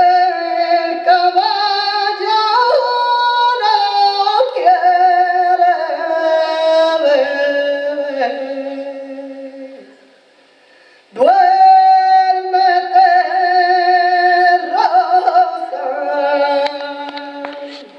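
Women's voices singing slow, held, wavering notes without instruments, in two long phrases with a short pause about ten seconds in.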